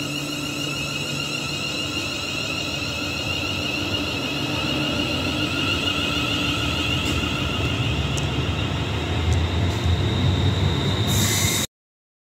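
Electric train running past on the line, a steady rumble with a high whine over it, getting louder towards the end and cut off suddenly near the end.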